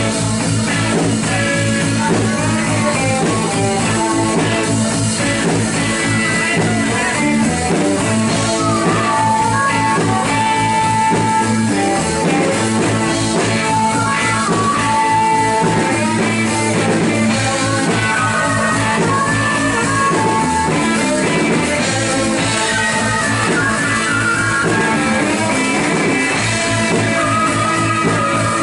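Live rock band playing a song, led by guitar over a drum kit, with long held notes in the higher register.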